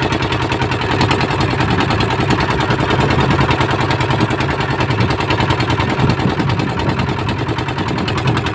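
A fishing boat's engine running steadily, heard from on board as a loud, fast, even chugging beat.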